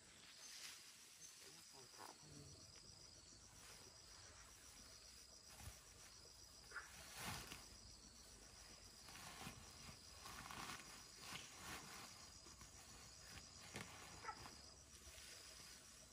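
Faint insect chirping, crickets most likely, a steady high pulsing trill, with scattered soft knocks and rustles.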